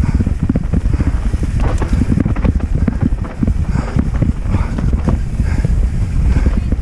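Wind buffeting a helmet-mounted camera's microphone as a Yeti SB6 mountain bike descends fast over a rough dirt trail, with a steady low rumble and a constant clatter of rapid knocks and rattles from the tyres, suspension and drivetrain over the bumps.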